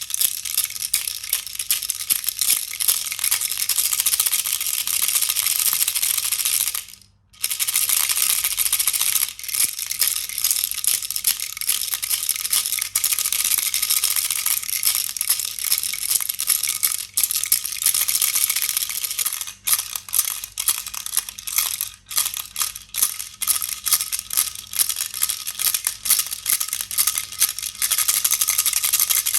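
A baby rattle being shaken continuously, making a fast, dense rattling. It stops briefly about seven seconds in, then goes on.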